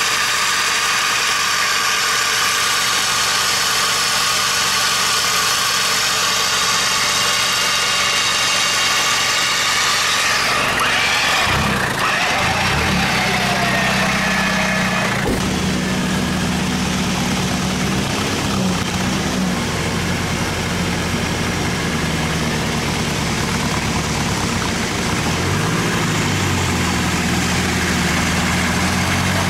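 Off-road 4x4 engine running, with a steady high whine over roughly the first ten seconds. About a third of the way in, a low steady engine drone takes over.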